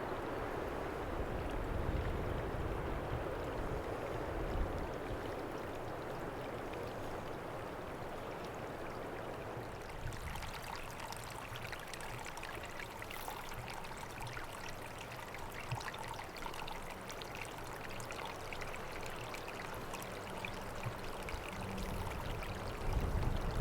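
Strong wind rushing past and rumbling on a shotgun microphone fitted with a furry wind muff, a steady noise like running water. From about ten seconds in the low rumble eases and a finer crackling hiss comes in.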